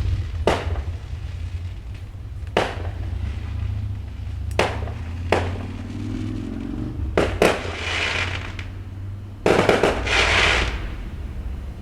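Fireworks going off: single sharp bangs every second or two, then two spells of crackling in the second half, the louder one opening with a bang about three-quarters of the way in. A steady low hum runs underneath.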